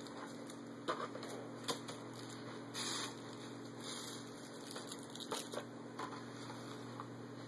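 Light rustling and a few soft clicks and knocks from gift bags and toys being handled, with a brief burst of crinkling about three seconds in, over a faint steady hum.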